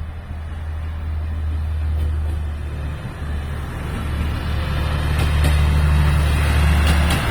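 Resort Shirakami 'Buna' trainset, an HB-E300 series hybrid diesel train, pulling away: a steady low engine hum that grows louder from about four seconds in, with a few sharp clicks near the end.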